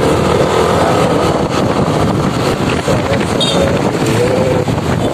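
Wind rushing over a phone microphone on a moving motorbike, with the bike's engine running underneath at a steady level.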